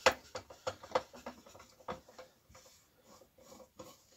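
Screwdriver working small screws out of the front of an old Salter parcel scale's metal housing: a run of irregular metal clicks and light scrapes, loudest in the first two seconds and thinning out after.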